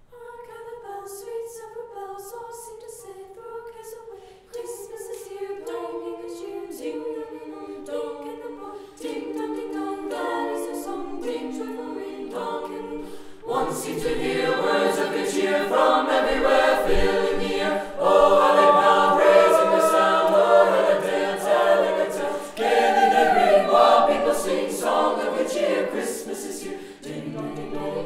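An a cappella vocal ensemble singing in harmony. It opens with upper voices only; about halfway through, lower voices join and the singing grows fuller and louder.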